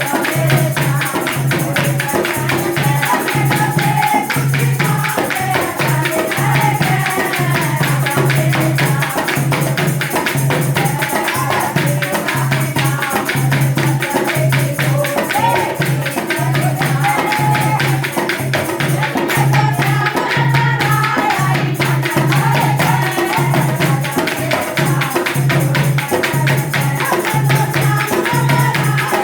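Haryanvi devotional folk song (a Shyam bhajan): singing over a steady percussion beat with jingles.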